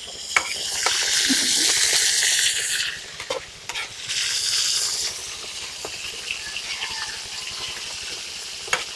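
Shredded bamboo shoots sizzling in a hot steel wok while a metal spatula stirs and scrapes them. The sizzle surges loudly about half a second in and again around four seconds in, then settles to a steady lower sizzle with scattered scrapes.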